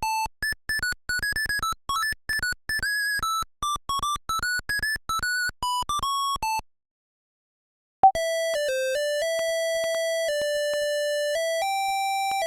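Zetafone LT-600 ringtones: a fast melody of short electronic beeps, one note at a time, stops about seven seconds in. After about a second of silence and a click, the next ringtone starts, a slower melody of longer held notes.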